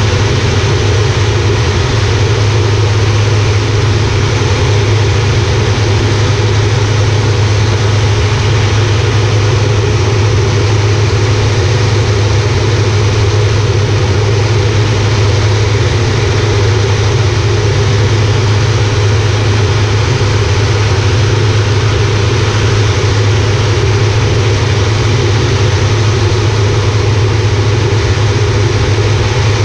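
Air Tractor 402B's PT6A turboprop engine and propeller running steadily in flight, heard from inside the cockpit: a loud, unchanging low hum over a wide rushing noise.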